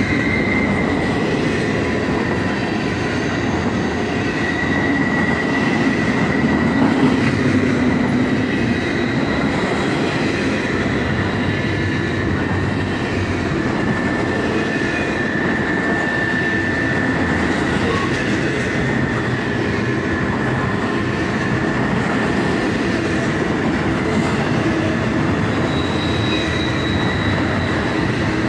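Double-stack intermodal freight cars rolling past at speed: a steady, dense rumble and rattle of steel wheels on the rails, with a thin high wheel squeal held over it throughout.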